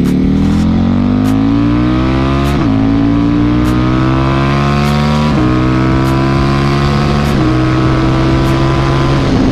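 KTM RC8R V-twin engine through a Jester aftermarket exhaust, accelerating hard through the gears: the pitch climbs, drops at each of three upshifts, climbs again, and falls off near the end.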